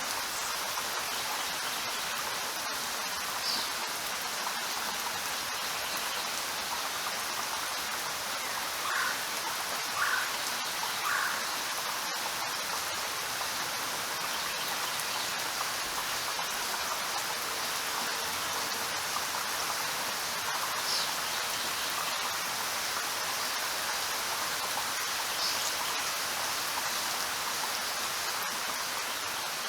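Steady, even rain falling, with a few brief higher sounds standing out above it, three in quick succession about a third of the way in.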